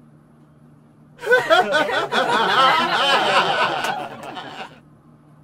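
A woman's wavering, breathy laugh-crying, coming on loudly about a second in and fading out some three and a half seconds later.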